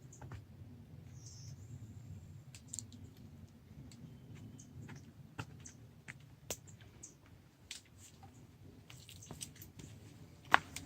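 Faint footsteps of a hiker on a rocky trail: scattered light clicks and scuffs over a low rumble, with one sharper click near the end.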